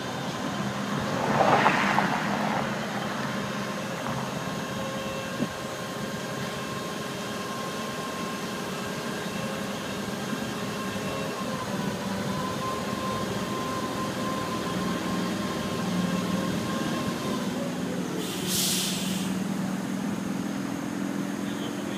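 Large forklift's engine running steadily, its pitch shifting a couple of times as it works. A brief louder rush about two seconds in, and a short sharp hiss of air near the end.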